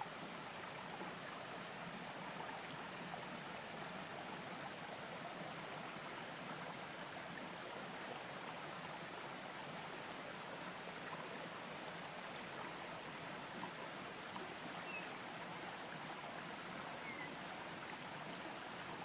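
River water running steadily, an even rush of flowing water.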